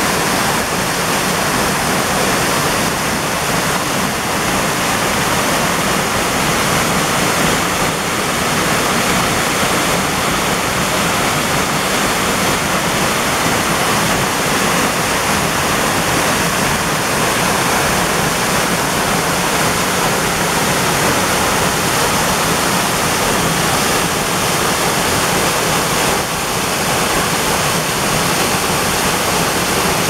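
Waterfall pouring down a rock face into a churning plunge pool: a loud, steady rush of falling water.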